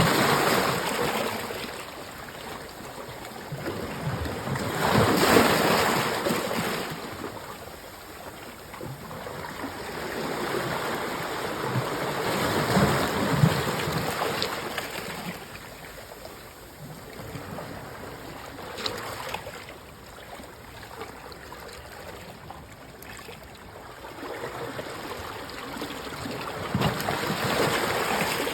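Rushing water that swells and eases in slow surges every several seconds, with a few faint knocks.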